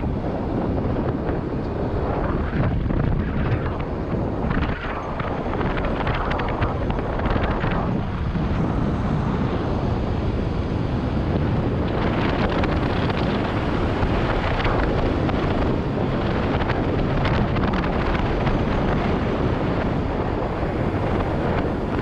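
Wind rushing and buffeting on the microphone of a camera on a moving motor scooter, a steady loud rush with no let-up.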